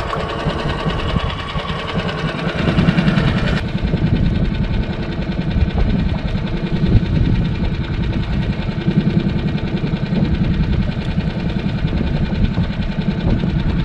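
Small boat outboard motor running steadily at low speed, a continuous low hum with a fast mechanical flutter; the brighter upper hiss drops away about four seconds in.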